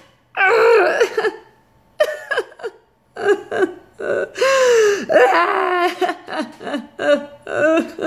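A woman crying: sobbing and wailing in short bursts with gasping breaths, the pitch of her voice sliding up and down.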